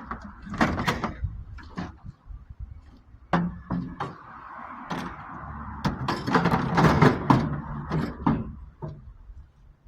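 Scrap being handled and loaded onto a truck: a run of knocks, bangs and clatters, busiest and loudest from about six to seven and a half seconds in.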